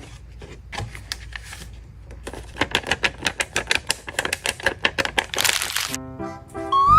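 Rapid sharp clicking, about eight clicks a second, ending in a short burst of hiss, then a jingly tune with a rising whistle-like glide starts near the end.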